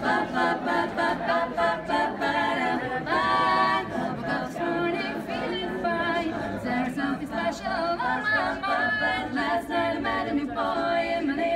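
Four women singing a cappella in close harmony, wordless doo-wop-style syllables with no instruments.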